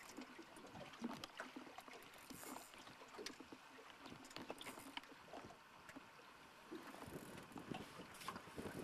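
Faint water lapping against a small boat's hull on choppy water, with scattered light clicks and knocks.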